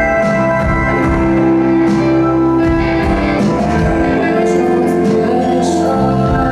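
A live band playing music, with guitar among the instruments.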